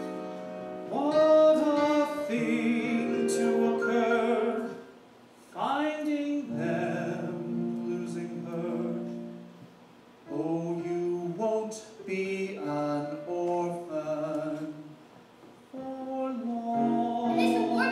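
A voice singing a slow song in phrases a few seconds long, with short pauses between them.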